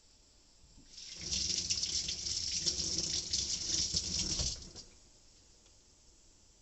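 Water running or pouring for about three and a half seconds, starting about a second in and stopping suddenly near five seconds.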